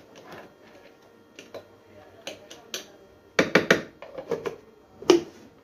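Light clicks and scrapes of a spoon working soaked, half-ground moong dal inside a plastic blender jar. Then comes a cluster of louder knocks about three and a half seconds in and a sharp knock near the end as the jar and its lid are handled.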